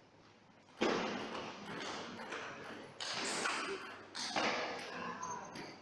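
Table tennis ball being struck during a rally, with loud crowd noise that breaks in suddenly about a second in and surges again twice before dying down near the end.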